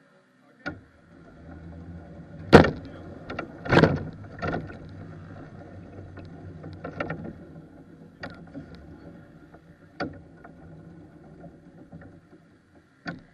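Go-kart rolling over bumpy ground with its engine off: a steady low rumble with irregular knocks and rattles through the chassis, and two loud thumps about two and a half and four seconds in.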